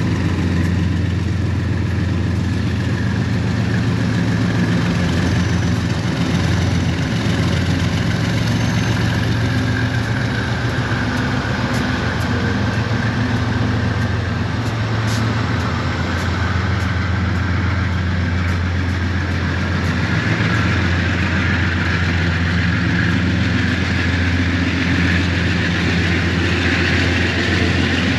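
Diesel locomotives running steadily with a low, even engine hum as a container freight train moves slowly along the line.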